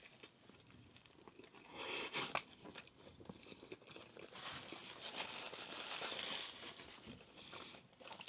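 A person biting into and chewing a breakfast sandwich on a lightly toasted everything bagel: soft, moist crunching and mouth sounds, louder around two seconds in and again from about four and a half to six and a half seconds.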